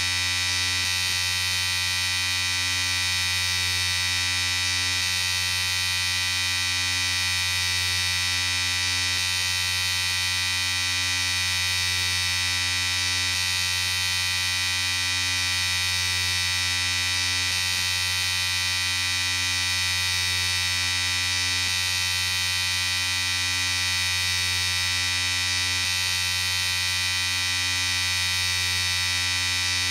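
Electric shaver running steadily, a constant motor buzz with a stack of even tones.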